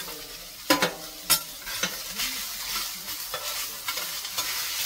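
Onions sizzling on a stainless-steel electric flat-top griddle being seasoned, stirred with a metal utensil. Two sharp metal clangs on the griddle plate about a second in, the first ringing briefly.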